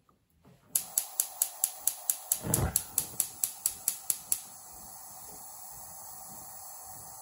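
Gas hob burner lit by its spark igniter: rapid ticking, about four clicks a second for some three and a half seconds, with a low whoosh about two and a half seconds in as the gas catches. The burner then burns with a steady hiss.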